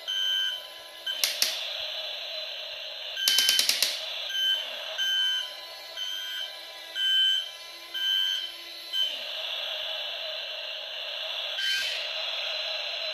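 Jamara 517J toy RC excavator beeping a repeated warning tone about once every 0.7 seconds while it works, with a burst of rapid clicking a little after three seconds. Its small electric motors whine steadily over the last few seconds.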